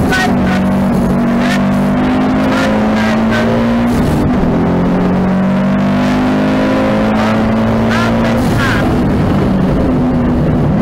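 Rally car engine heard from inside the cabin under hard acceleration. Its pitch climbs, drops sharply about four seconds in at a gear change, climbs again, then falls back past eight seconds and holds steadier.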